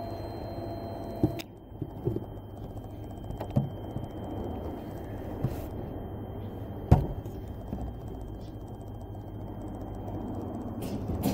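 Scattered clicks and knocks of handling small parts, with one sharper knock about seven seconds in, over a steady low background hum; a faint high whine stops about a second and a half in.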